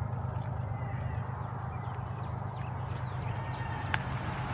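Outdoor ambience: a steady low rumble, with faint short bird chirps in the middle, a thin high pulsing tone, and a single sharp click about four seconds in.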